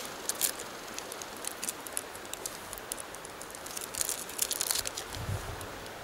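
Plastic candy-bar wrapper crinkling in hands in short bursts, about half a second in and again around four seconds in, over the steady rush of the river. A soft low thump comes near the end.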